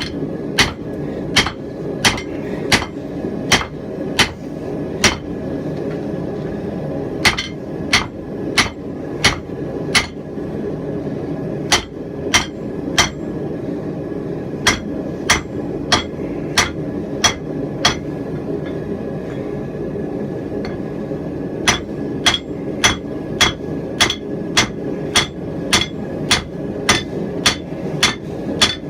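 Hand hammer blows on a hot steel hammer head on the anvil, about one and a half strikes a second with a short ring on each. The strikes stop for a couple of seconds twice, and a steady low rumble runs underneath.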